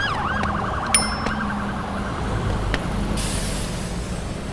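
Electric scooter's electronic horn sounding a wailing siren tone that switches to a fast warble and cuts off about a second and a half in. After it come a low hum and road noise.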